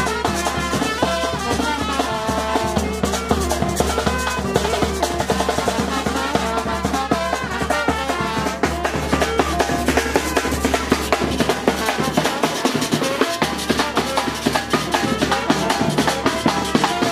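Live brass band music: trumpet and saxophone playing a lively dance tune over drums and a fast, steady scraping and ticking rhythm from a metal güira.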